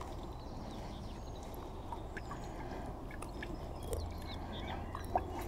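Quiet lakeside ambience: a steady low rumble with a few faint bird chirps and small clicks.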